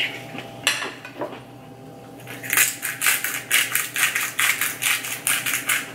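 Hand-twisted spice grinder crunching in quick, even strokes, about three a second, through the second half. A single clink of cutlery on a plate comes under a second in.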